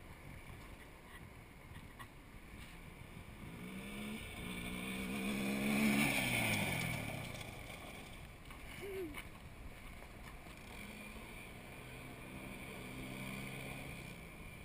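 Honda 300EX quad's single-cylinder four-stroke engine revving hard as it passes close by: the note climbs to its loudest about six seconds in, then drops in pitch and fades. A steadier, fainter engine note follows from further off near the end.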